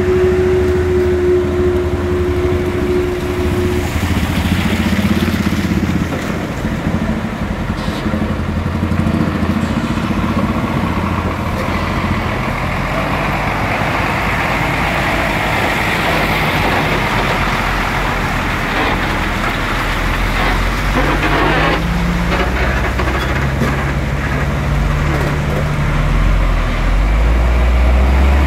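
Hino Ranger tanker truck's diesel engine running as it rolls slowly past, tyres churning through shallow floodwater with a rising hiss of water. A steady tone is held for about the first four seconds.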